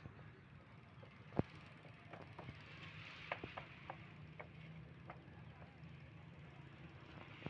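Faint outdoor background with a steady low hum of distant road traffic, broken by about ten scattered light clicks and ticks. The loudest click comes about a second and a half in.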